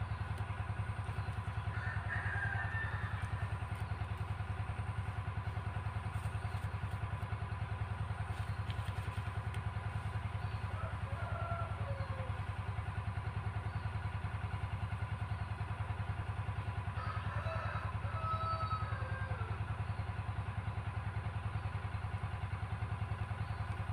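Diesel engine driving an irrigation pump for the rice fields, running steadily with a low, even throb.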